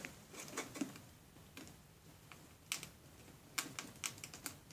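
Fingers tapping and rubbing on a glossy cardboard box while it is handled, a scatter of faint light clicks and taps, most of them in the second half.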